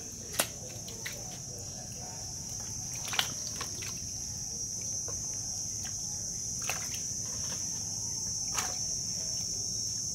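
Steady high-pitched insect drone, like crickets, running without a break, with four sharp clicks scattered through it.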